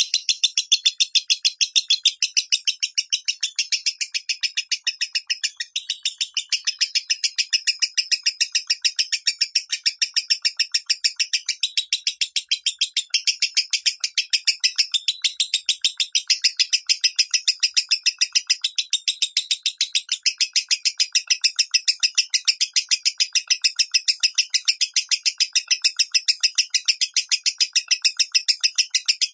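Lovebird giving the 'minor' song: a fast, even run of short high chirps, about four or five a second, kept up without a break.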